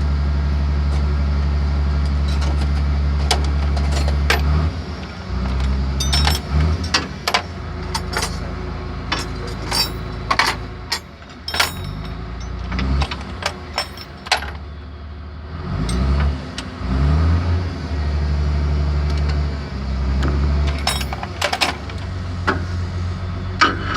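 An engine running, steady for the first few seconds and then wavering and shifting in pitch, with sharp metallic clinks scattered through the middle and near the end.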